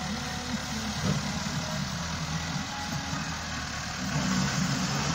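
Massey Ferguson 385 tractor's four-cylinder diesel engine running under load as it pulls a trolley heaped with soil, its low note wavering steadily.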